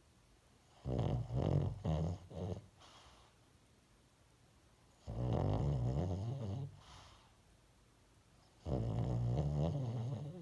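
A dog snoring in its sleep: three rough snores about four seconds apart. The first is broken into several short choppy pulses; the other two are each one steadier snore of about a second and a half.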